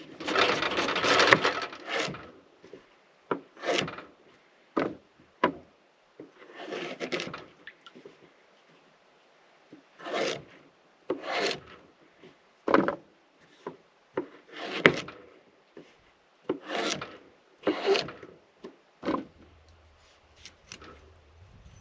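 Irregular rubbing and scraping strokes on wood, about a dozen, with the longest and loudest near the start.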